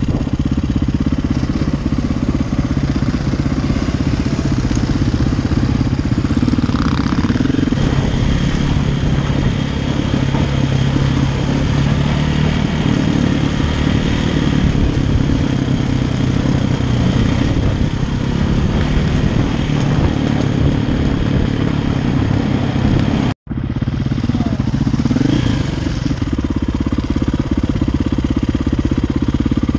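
KTM enduro motorcycle engine running steadily under way, heard close from the rider's own bike. About three quarters through, the sound cuts out for an instant, then the engine is heard again.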